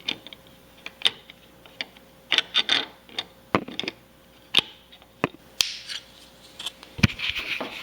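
Plastic clicks, taps and short scrapes from the stitch-hook mechanism inside an opened toy sewing machine, moved by hand at an uneven pace. A louder click about seven seconds in is the part snapping back into its hole.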